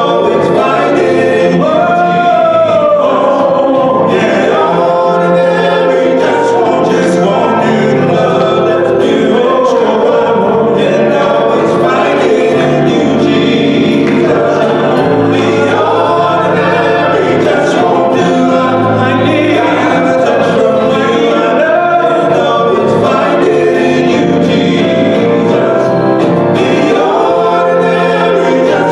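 Male gospel vocal quartet singing in harmony into handheld microphones.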